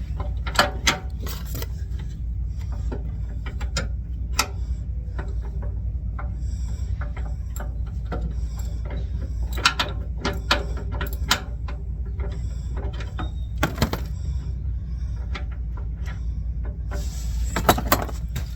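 Hand socket ratchet clicking in short irregular bursts with metal tool clinks as suspension bolts are turned, over a steady low hum.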